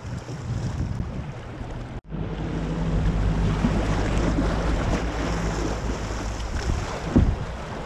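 River water splashing and rushing around a kayak, with wind buffeting the microphone. The sound cuts out abruptly about two seconds in, comes back louder, and there is a single thump near the end.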